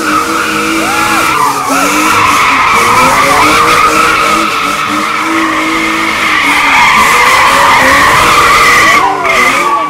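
A BMW 3 Series drift car spinning donuts, its tyres squealing in one long unbroken screech. Beneath the squeal, the engine revs up and down.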